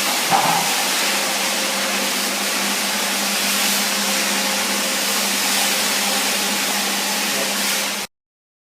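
A floor-cleaning machine's motor running steadily, a constant hum under a broad hiss, then cutting off suddenly near the end.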